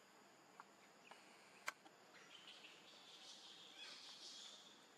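Near silence with faint birds and insects chirping, and one sharp click about a second and a half in.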